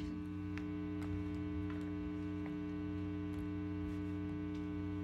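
Steady electrical mains hum from amplified band gear left switched on but not played, with a few faint clicks.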